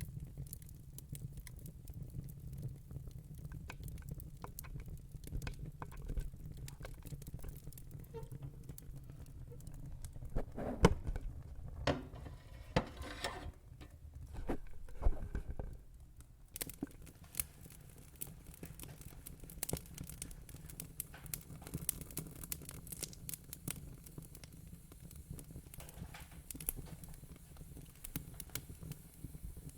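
Crackling fire: irregular sharp pops and snaps over a low steady rumble, with a busier, louder run of pops about a third of the way in.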